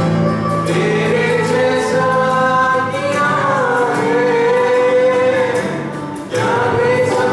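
Small mixed choir of men and women singing a Christian song in unison, led by a male voice on microphone, with strummed acoustic guitar. The singing dips for a breath about six seconds in, then comes back in at full strength.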